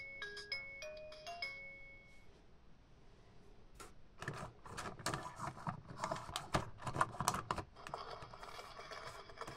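VTech Go! Go! Smart Animals giraffe toy playing the last notes of a simple electronic tune, which ends about a second and a half in. From about four seconds in, rapid clicking and clattering of hard plastic as the toy is handled and pushed on its plastic track piece, loudest just before the end.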